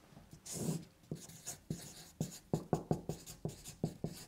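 Marker pen writing on flip-chart paper: a quick run of short strokes, about three or four a second, closest together in the middle.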